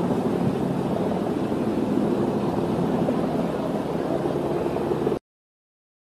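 Steady engine hum with a constant low drone, cutting off abruptly about five seconds in.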